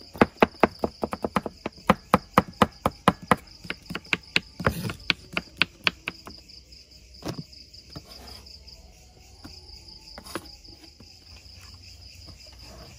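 Kitchen knife chopping ginger on a wooden cutting board: rapid even strokes, about four or five a second, for the first half, thinning to a few scattered knocks after that. A steady high insect chorus runs underneath.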